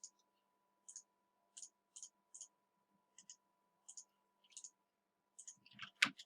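Computer mouse clicking in short, sharp pairs of press and release, about a dozen times at an uneven pace, with a louder knock near the end. A faint steady hum runs underneath.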